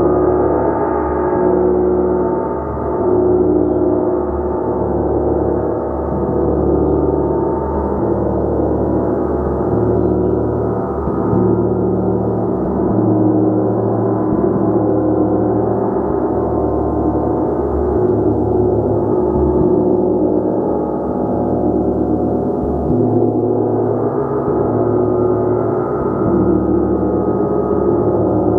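Gong played continuously, a sustained ringing of many overlapping tones with a slow throbbing in the bass that never dies away.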